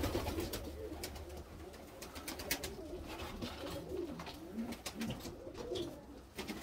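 Domestic pigeons cooing, low wavering coos repeating one after another, with scattered clicks and rustling from the birds.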